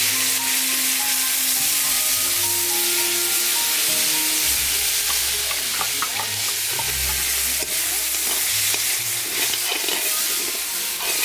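Onion and green chilli paste sizzling as it fries in hot oil in an aluminium kadhai, with a steady hiss, while a metal ladle stirs it and clicks and scrapes against the pan, more busily about halfway through and again near the end.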